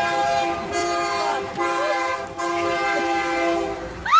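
Freight locomotive's multi-chime air horn sounding a steady chord in long blasts with short breaks, the warning signal of a train coming through a road grade crossing.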